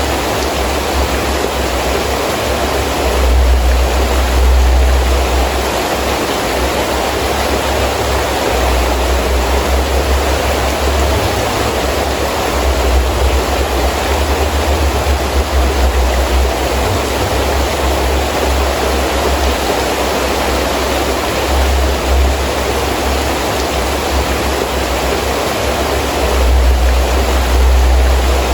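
Heavy rain falling steadily, with gusts of wind rumbling low, swelling and fading every few seconds.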